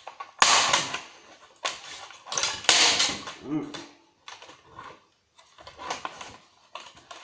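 Hard plastic casing of a set-top TV recorder cracking and snapping as it is forced apart by hand: irregular sharp cracks and crunches, some in quick clusters, with short pauses between them.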